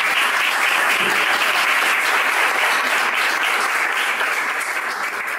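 Audience applauding, clapping fading slightly near the end.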